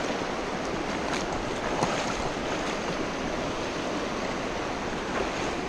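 Rocky mountain stream running over shallow riffles and rocks: a steady, even rush of water.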